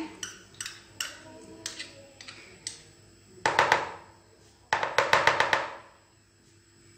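A metal spoon clinking and tapping against a glass bowl as tomato paste is knocked off it: a few light clinks, then two short rattling bursts of clatter.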